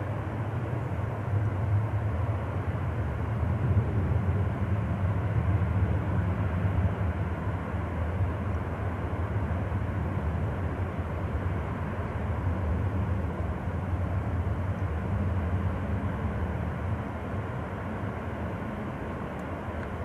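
Steady, distant rush of Grouse Falls, a tall snowmelt-fed waterfall heard from about half a mile away, under a low drone that swells about a second in and fades near the end.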